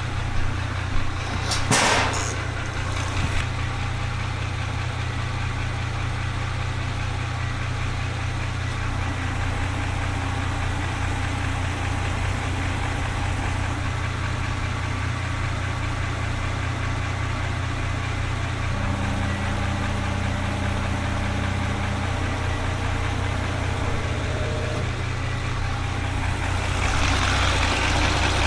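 Porsche Macan S V6 engine idling with a steady drone and a knocking noise that the mechanic likens to a connecting-rod knock. A single sharp clack sounds about two seconds in.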